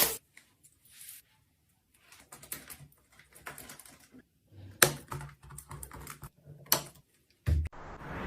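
Scattered light clicks and taps separated by quiet gaps, with two sharper clicks about halfway through and a little before the end.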